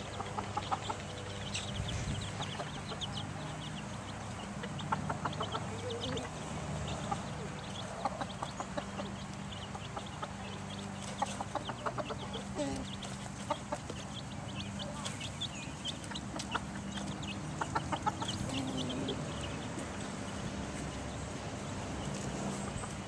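A brood of young chicks, mostly Transylvania Naked Necks, peeping in many short high chirps, with a mother hen clucking among them.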